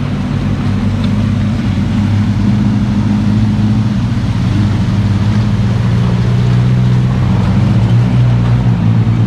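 Off-road vehicle engines running steadily at low revs as they ford a shallow river, a constant low drone.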